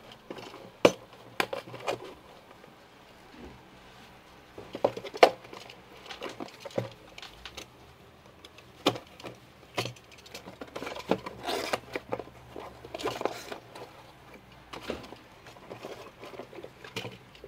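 Cardboard shipping box handled and opened by hand: irregular taps, knocks and rustles of the cardboard flaps and sides.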